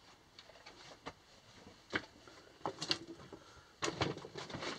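Footsteps on the loose rock and gravel of a mine tunnel floor: a few faint scattered steps, coming closer together near the end.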